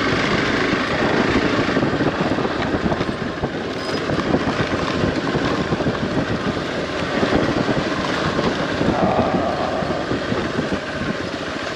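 Motorcycle engine running at low speed as the bike rides over a rough dirt track, with wind noise on the microphone.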